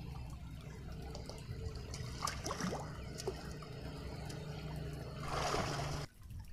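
Shallow stream water splashing and sloshing as a macaque wades through it, with a steady low rumble underneath. A longer, louder splash comes about five seconds in, and the sound cuts off suddenly about a second later.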